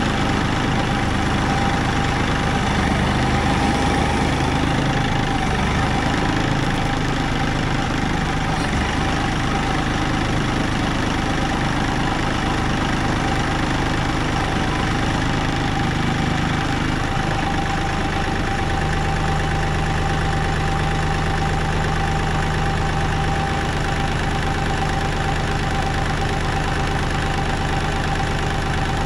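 Tractor engine running steadily; about eighteen seconds in its low note changes and settles into a steadier hum.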